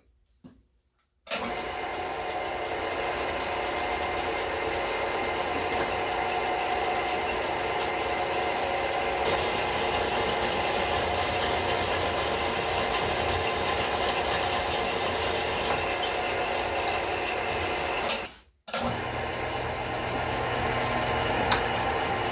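An old floor-standing drill press starts about a second in and runs steadily as its twist drill bores into a steel bar. Its steady machine noise drops out sharply about three-quarters of the way through, then resumes.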